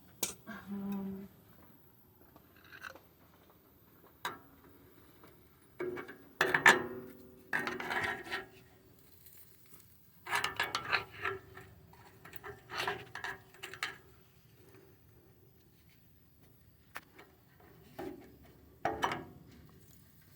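A metal tool scraping and clinking inside a cut-open catalytic converter, prying at a broken-loose chunk of the catalyst substrate, in several bursts with quiet pauses between them.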